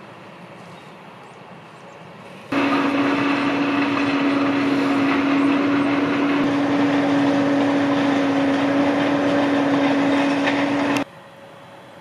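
Engine of farm machinery running steadily, a constant low hum with a higher whine over it, cutting in suddenly about two and a half seconds in and cutting off about a second before the end.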